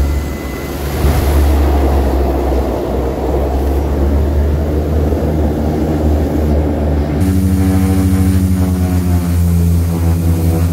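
Floatplane's turboprop engines and propellers running loud through the cabin during a water landing and taxi: a steady low drone with a rushing noise of spray over it. About seven seconds in the engine note changes to a steadier throb with a regular pulsing beat.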